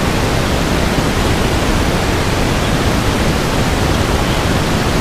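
Steady, loud rushing noise that covers everything else, with no distinct events in it.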